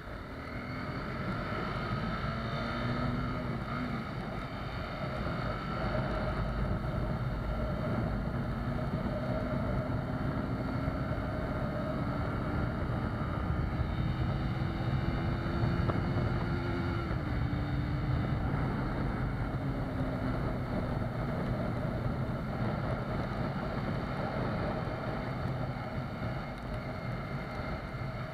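Honda CBR250R's single-cylinder engine on its stock exhaust while riding at speed on a wet road, under steady wind noise and tyre hiss. It gets louder over the first couple of seconds as the bike pulls away, and the engine note climbs slowly before dropping back about two-thirds of the way through.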